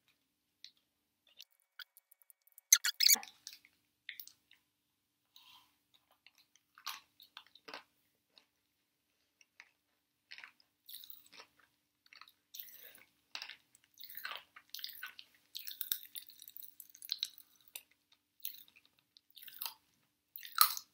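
A person chewing sour candy close to the microphone: scattered wet clicks and crackles, thickening into steady chewing in the second half. A brief louder crackle about three seconds in.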